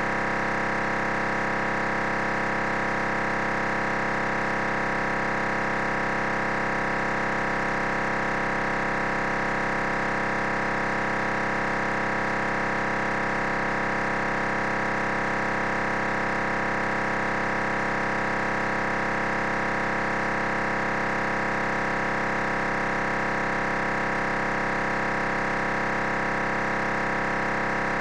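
FM-demodulated digital radio carrier from an MMDVM base station: a steady, unchanging digital buzz made of many fixed tones, with a faint fast pulse underneath.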